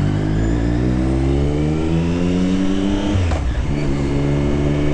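Motorcycle engine pulling hard under acceleration, its pitch rising for about three seconds, then dropping suddenly at an upshift and starting to climb again.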